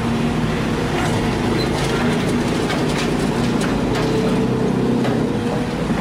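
Sumitomo SH210 hydraulic excavator's diesel engine running steadily under load while its bucket empties soil into a dump truck, the dirt and clods knocking and rattling onto the truck's steel bed in a run of impacts through the middle.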